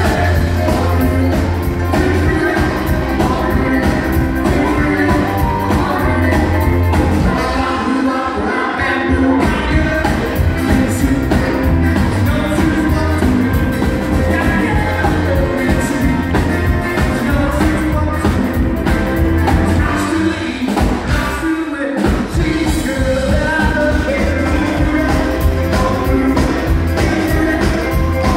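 Live band playing through a PA: a male lead singer over electric guitars, bass guitar and drums. The bass and low end drop out briefly about eight seconds in and again about twenty-one seconds in, then come back.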